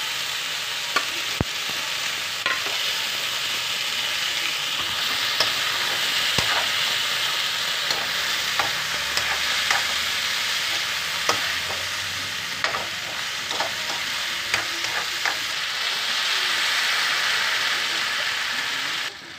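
Chicken pieces and garlic sizzling in hot oil in a wok, with a spatula scraping and knocking against the pan as they are stirred. The sizzle is steady, the knocks come irregularly, and the sound drops away sharply just before the end.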